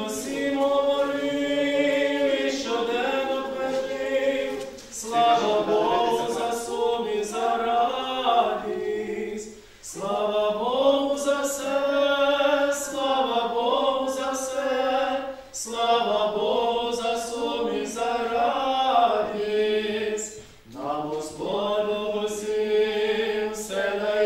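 A group of voices singing a church hymn unaccompanied, in long sung phrases with short pauses for breath between them.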